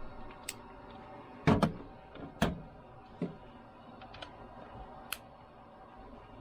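A few separate sharp knocks and clicks of tools being handled on a nut and bolt, the loudest about a second and a half in; no motor runs.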